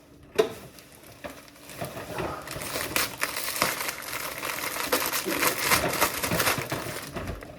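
Paper crumpling and crinkling as a present is unwrapped: a single sharp tap about half a second in, then dense crinkling from about two seconds in until near the end.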